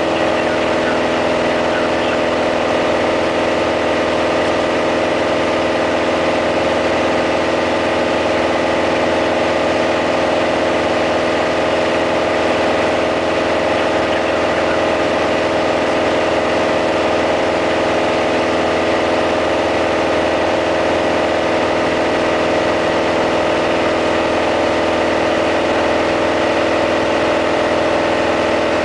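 Piper PA-28-180 Cherokee's 180 hp four-cylinder Lycoming O-360 engine and propeller running at steady power in flight, a constant loud drone heard inside the cabin.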